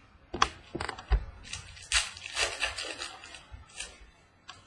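Trading cards and their foil pack wrapper being handled: a few sharp clicks in the first second, then a stretch of crinkling and rustling.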